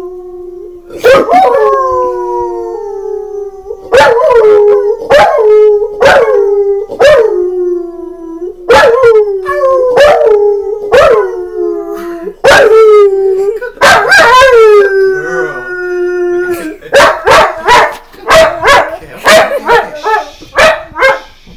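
A husky-type dog howling along with a man who howls with it: repeated howls that start sharply and slide down in pitch, some held long and steady. Near the end come shorter, clipped calls, about two a second.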